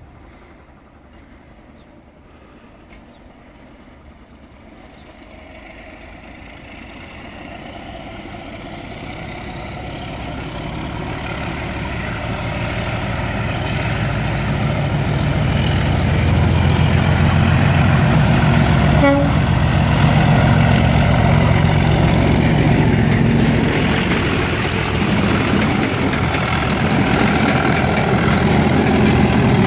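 Class 37 diesel locomotive hauling a test train, its engine working hard as it gets louder on the approach and then runs close by. There is a deep engine rumble and a high whistle that rises in pitch as it nears.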